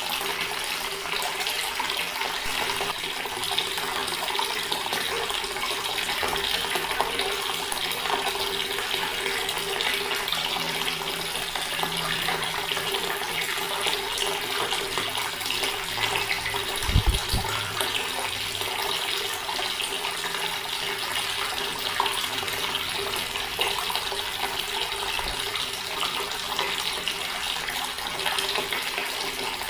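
Water running steadily from an open tap in an even rush, with a brief low thump about two-thirds of the way through.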